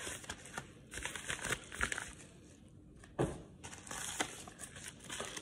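Padded mailer envelopes crinkling and rustling as they are handled, with irregular crackles and one sharper, louder crackle about three seconds in.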